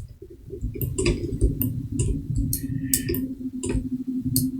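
A computer mouse clicking about a dozen times at uneven intervals, over a low steady hum.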